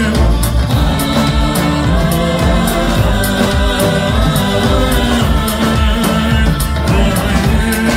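Balkan brass band playing live: brass horns and tubas over a marching snare and drum kit, with keyboard, at a steady beat.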